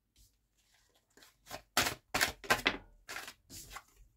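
A deck of large oracle cards being shuffled by hand: a run of quick papery slaps and riffles starting about a second in, loudest near the middle.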